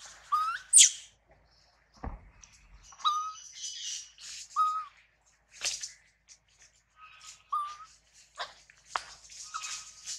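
Forest animal calls: a short whistled call that hooks upward, repeated four or five times, mixed with sharp fast chirps; the loudest chirp comes about a second in.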